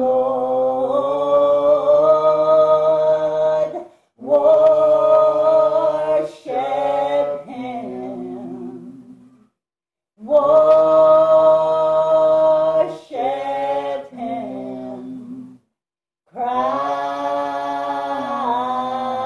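A man singing a worship chorus unaccompanied, in four long phrases of held notes that step down in pitch at the end of each, with short breaks between them.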